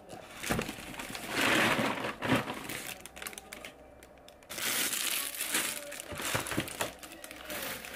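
Packaging being crinkled and handled, in irregular rustling bursts with a few light knocks.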